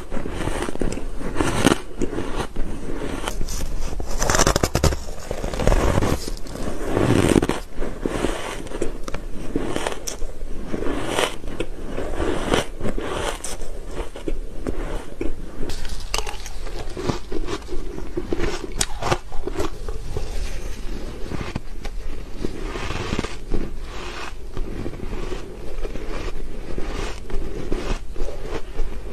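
Frozen ice being bitten and chewed right at the microphone: dense crunching and crackling, bite after bite. Near the end it turns to a spoonful of soft shaved ice being chewed.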